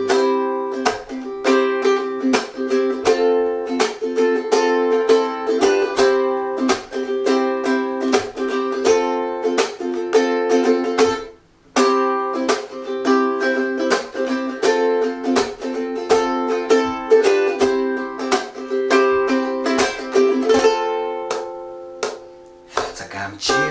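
G-Labo Usulele thin ukulele strumming chords in a brisk sixteenth-note rhythm with sharp percussive strokes, stopping dead for a moment about halfway through before picking straight back up.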